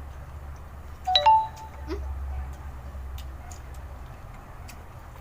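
Mealtime sounds: scattered faint clicks of chewing, and a single short ringing clink about a second in, over a low steady hum.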